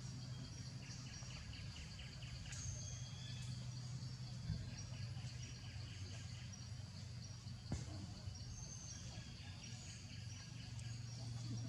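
Outdoor ambience: small birds chirping with short high notes and rapid trills, over a steady low hum.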